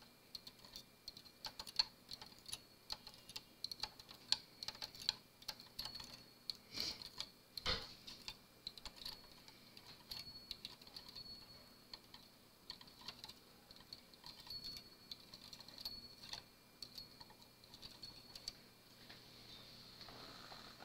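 Light irregular clicking as the latches of a Brother 930 knitting machine's latch needles are flipped open, one after another, with a hand tool run along the hooks.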